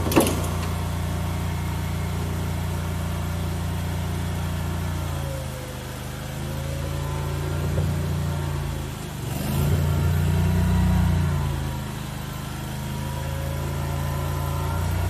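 Small engine of a mini skid steer running, its pitch dipping and rising a few times as the machine is worked. A single sharp knock comes just at the start.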